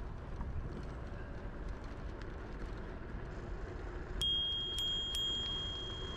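Bicycle bell rung, three bright dings about four seconds in, each ring carrying on into the next, over the low rumble of tyres and wind while riding.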